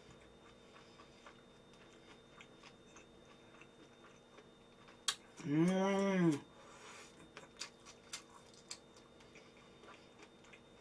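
A woman's closed-mouth "mmm" hum of enjoyment while chewing, about a second long, its pitch rising and then falling, about halfway through. A sharp click comes just before it, with faint scattered ticks and clicks around it.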